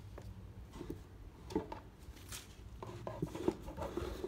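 Handling noises: scattered light knocks and rubbing as sneakers and a cardboard shoebox are moved about on a wooden floor.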